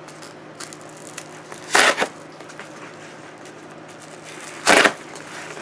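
Packaging being handled and pulled at in an attempt to open it: light crinkling throughout, with two short, loud rasps of the wrapping, one about two seconds in and one near the end.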